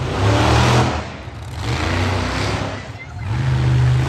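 Monster truck engine revving hard in three surges, rising and falling as the truck powers through the dirt.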